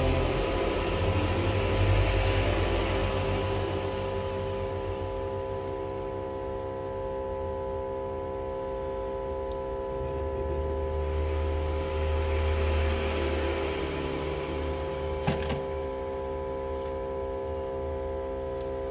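Steady machine hum with several held tones from the LCD separator set-up, with a rough scraping noise that swells at the start and again a little past the middle as the screen is worked on the plate. One sharp click about fifteen seconds in.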